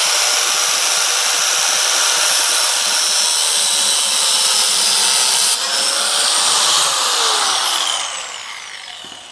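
Corded angle grinder running at full speed, cutting through a stuck metal part that would not come out. Near the end it is switched off and winds down with a falling whine.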